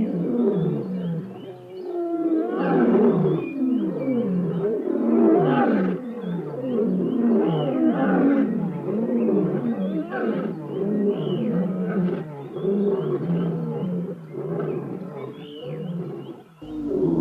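Lions roaring: a long series of deep, repeated calls, several overlapping one another, breaking off briefly near the end.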